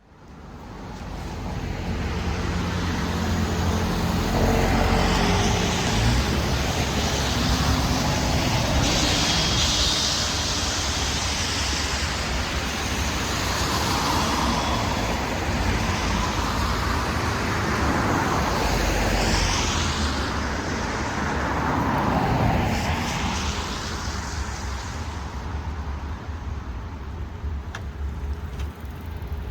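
Road traffic: a series of cars passing one after another, tyres hissing on a wet road over a steady low rumble. The sound fades in at the start.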